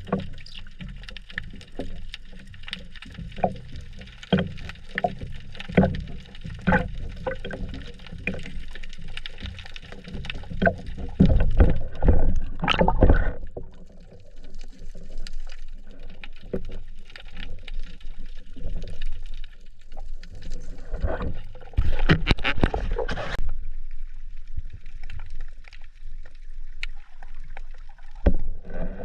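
Water sloshing and gurgling around a spearfisher's camera, with many scattered clicks. It swells into louder rushes about eleven seconds in and again about twenty-two seconds in.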